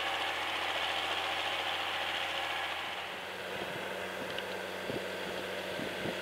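Diesel engines of John Deere tractors working in a field. First a 6000-series tractor pulls a trailed machine. About three seconds in, the sound changes to a John Deere 7920's six-cylinder diesel running steadily as it pulls a cultivator, with a few short knocks.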